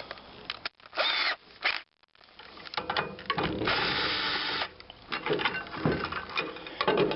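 Power drill running in short bursts, about a second each, as it backs out the screws or bolts holding a plate on, with clatter of handling between bursts.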